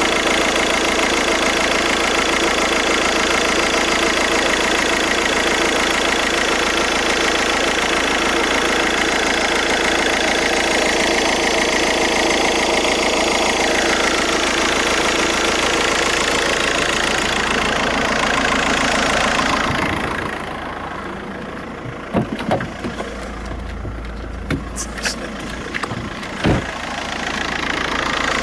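VW Golf 5's 1.9 TDI four-cylinder diesel engine idling steadily, in a car whose alternator is said to be failing. About two-thirds of the way through the sound turns quieter and duller, and several sharp clicks or knocks follow before it comes back up near the end.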